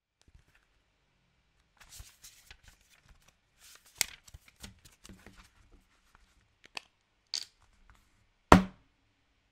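A passport being handled: paper rustles and page flicks with scattered clicks, a sharp click about four seconds in, then one heavy thump near the end.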